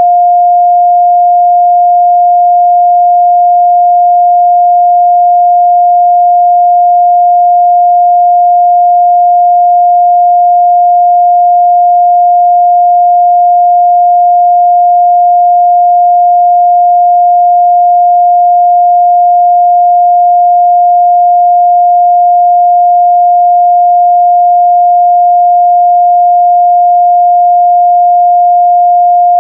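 A pure 706 Hz sine-wave test tone, a steady unbroken beep at a constant level with no other sound.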